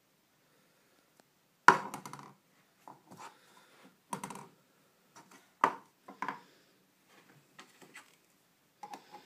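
Hollow knocks of a plastic Play-Doh pot and lid against a wooden floor, four sharp ones with a short ring, the loudest about two seconds in, then a few lighter taps near the end.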